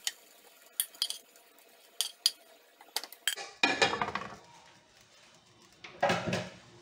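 Metal spoon scraping and clinking against an aluminium pressure cooker as chicken hearts and onions are spooned out into a glass bowl: a string of sharp clinks, then two louder clatters about three and a half seconds and six seconds in as the cookware is shifted on the stove grates.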